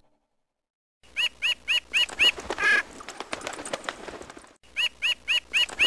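Magpie calling: starting about a second in, a quick run of five short arched notes, about four a second, ending in one longer note; the same run starts again near the end.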